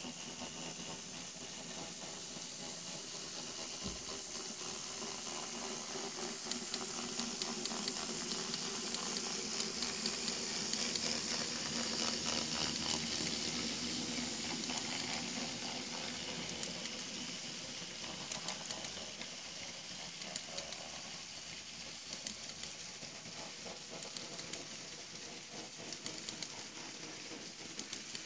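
N scale model train rolling past on the track: a steady hissing rattle of small wheels with fine clicking, growing to its loudest about halfway through and then easing off as the long string of flatcars goes by.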